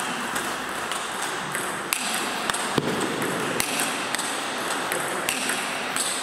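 Table tennis rally: the ball clicking sharply off the bats and the table in a steady back-and-forth, about two to three hits a second.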